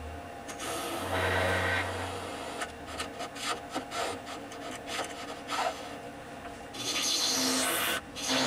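Bent hollowing tool scraping inside a wood-and-resin blank spinning on a lathe, shavings coming off the cut. It starts as a string of short scrapes and becomes a louder, steadier cut near the end.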